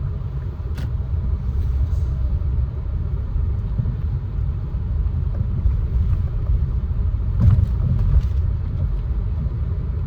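Steady low rumble of a car heard from inside the cabin, the engine and tyres running on a snow-covered road. Two short clicks cut through it, one about a second in and another later on.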